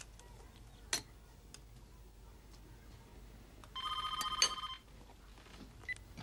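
A telephone rings once: a single trilling ring about a second long, past the middle. A sharp click sounds about a second in.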